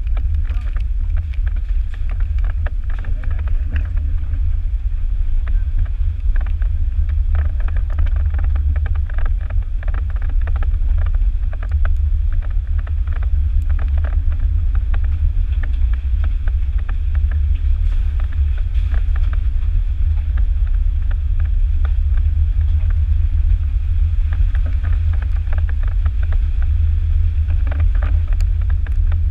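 Jeep driving on a gravel road, heard from a camera on its hood: a steady low rumble with many small crackles and ticks from the gravel under the tyres.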